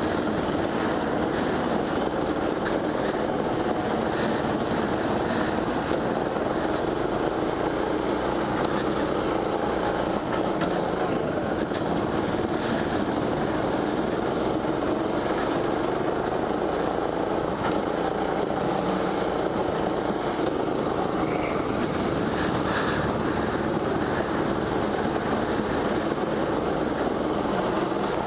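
Go-kart engine running at racing speed, heard from the driver's seat as a steady drone that hardly changes in level.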